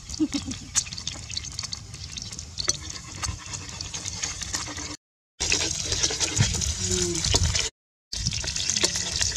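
An omelet sizzling in hot oil in a wok over a wood fire: a steady hiss dotted with small crackles. The sound drops out twice for a moment, about five and eight seconds in.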